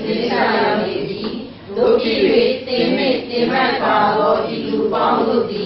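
A man's voice preaching into a microphone, speaking steadily in a measured, sing-song cadence with a brief pause about a second and a half in.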